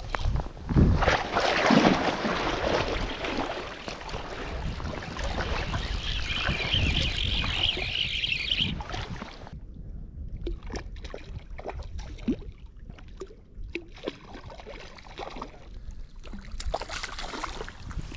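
Water splashing and sloshing with wind on the microphone, thinning out about halfway through into scattered small splashes and drips.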